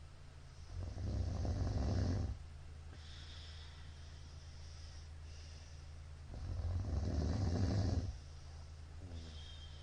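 A middle-aged man snoring very loudly in his sleep: two long snores about five and a half seconds apart, each lasting well over a second, with quieter breathing between them. A steady low hum runs underneath.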